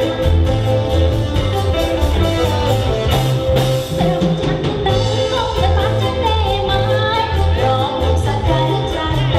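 Upbeat dance music with a steady beat, a repeating bass line and singing.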